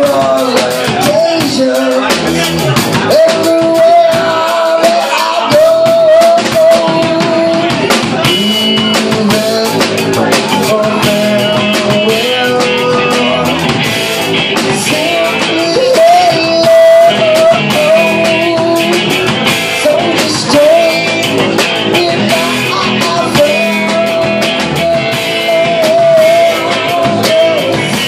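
Live rock band playing loudly: drum kit and electric guitars, with a wavering melody line over a steady beat.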